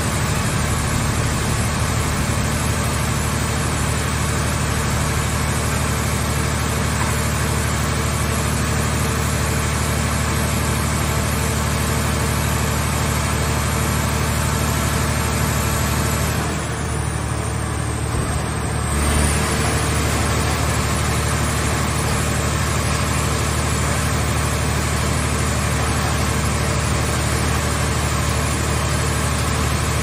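Hydraulic power unit of a vehicle-shell baler running steadily, a low machine hum like an idling engine. Past the middle the hiss in the upper range drops away for about two seconds, ending in a short low bump.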